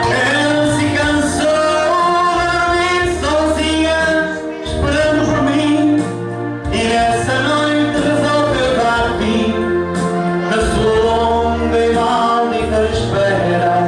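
Singing with instrumental accompaniment: a sung melody over a steady bass line, in the style of gospel music.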